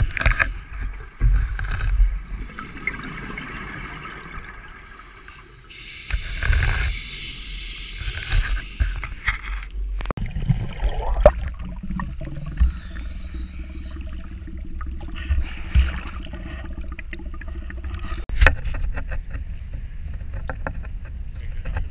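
Scuba breathing heard through an underwater camera housing: irregular hissing bursts and rumbling gushes of exhaled bubbles from a diver's regulator. About ten seconds in, the sound changes abruptly to a steadier low hum with scattered clicks.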